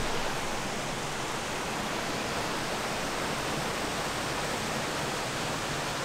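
Abiqua Falls, a waterfall plunging into its pool, giving a steady rush of falling water.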